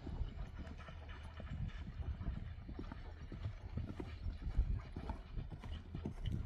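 Hooves of a ridden horse clip-clopping in a quick, uneven beat, over a steady low rumble.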